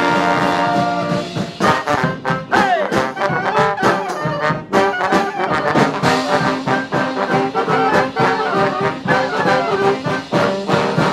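Street brass band playing live: horns over a steady beat. A note slides down about two and a half seconds in.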